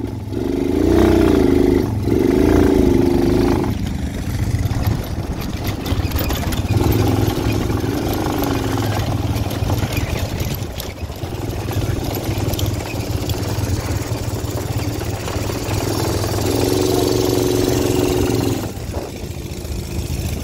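Quad bike engine running under a steady low drone, its pitch rising and falling several times as the throttle is opened and eased off, then held level for a couple of seconds near the end.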